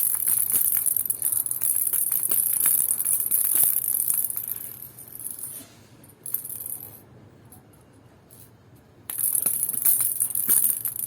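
A baby's toy rattle ball being shaken, a bright jingling rattle in two bouts: about four seconds of shaking, a pause, then more shaking near the end.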